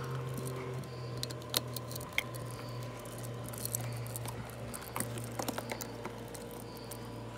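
Scattered light clicks and taps of small electrical parts and hardware being handled, over a steady low hum.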